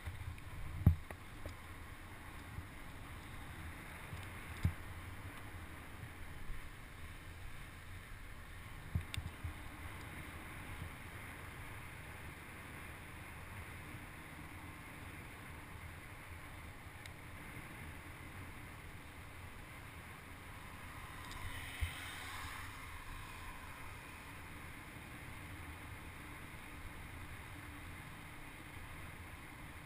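Wind on a helmet-mounted camera's microphone and tyre hiss as a mountain bike rolls down a wet tarmac road. A few sharp knocks come in the first ten seconds, and the hiss swells briefly about two-thirds of the way through.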